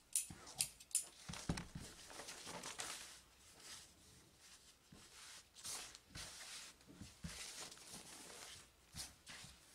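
Dressmaker's shears snip through fabric a few times in the first second, followed by the rustle and swish of lightweight fabric pieces being smoothed, lifted and shaken out by hand.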